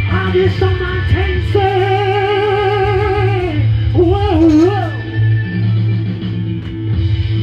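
Rock song with strummed electric guitar and a steady bass line, while a man sings a long wordless note with vibrato, followed by a short wavering run of notes about four seconds in.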